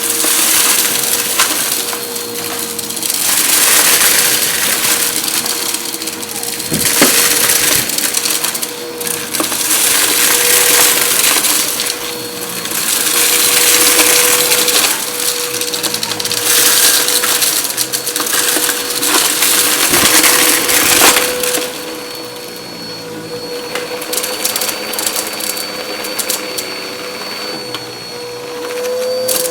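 Bissell vacuum running over a shag rug: a steady motor whine under a crunching, crackling noise of debris being sucked up. The noise swells and eases with each stroke, about every two seconds, and is quieter for the last several seconds.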